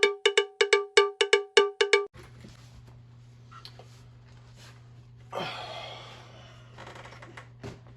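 A quick run of about eleven ringing, bell-like metallic strikes, about five a second, that stops about two seconds in. After it comes a steady low hum, with a brief rustling scrape about five seconds in.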